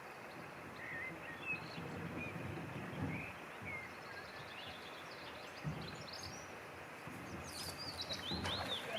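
Steady rushing of river water, with small birds chirping now and then, more often near the end, and a few soft knocks.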